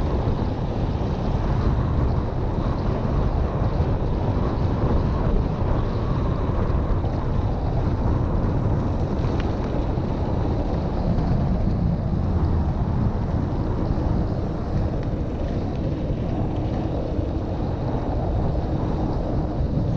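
Wind rushing over the action camera's microphone while cycling along an asphalt road, a steady low buffeting with no break.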